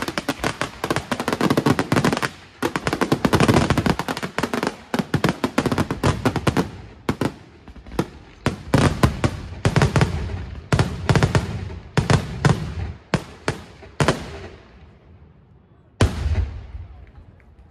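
Aerial fireworks shells bursting: a dense rapid string of bangs and crackle for the first several seconds, then separate loud bangs that ring out and thin away. After a short lull comes one last deep boom about sixteen seconds in.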